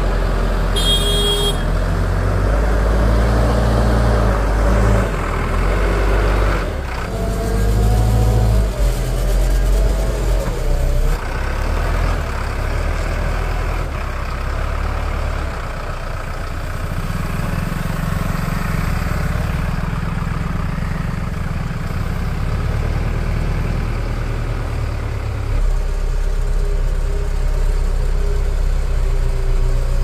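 Backhoe loader's diesel engine running loud and changing pitch as it revs up and eases off while the machine works. A brief high squeal sounds about a second in.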